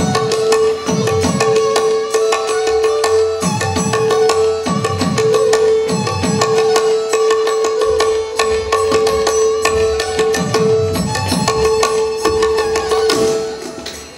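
Music for a Manipuri pung cholom dance: deep pung drum strokes that slide down in pitch, over a held high tone and plucked strings. The music fades out near the end.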